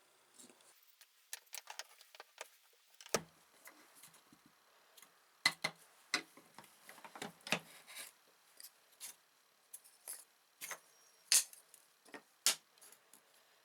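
Scattered light clicks and taps, irregularly spaced, from small tools and parts being handled at a workbench.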